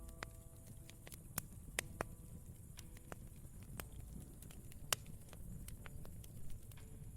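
Campfire crackling: irregular sharp pops and snaps over a steady low rumble, the sharpest pop about five seconds in. Faint low piano notes are held in the first couple of seconds.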